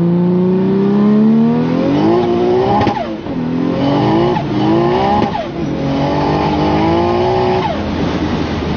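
Tuned 800 bhp Nissan Skyline R32 engine, heard from inside the cabin, accelerating hard through the gears. The engine note climbs and then drops at each of four quick upshifts, the last one near the end.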